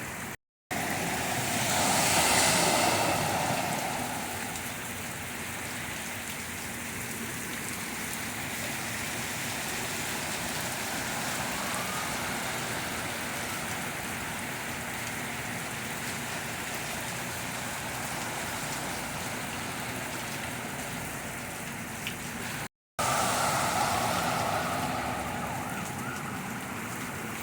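Steady rain with vehicles driving through floodwater. A car's tyres wash through the deep water a couple of seconds in, and another passes near the end.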